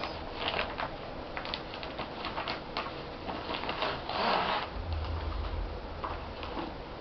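Cross-stitch kit contents being taken out of their plastic packaging: light crinkles, clicks and taps of plastic and paper, with a louder rustle about four seconds in followed by a dull low bump.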